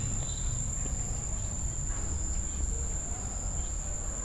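Steady, high-pitched insect drone, one unbroken tone, with a low rumble underneath.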